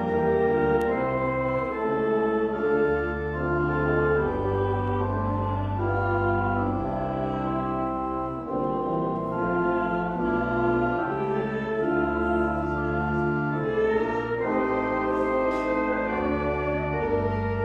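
Organ playing a slow piece in held chords over long, low bass notes, the chords changing every second or two.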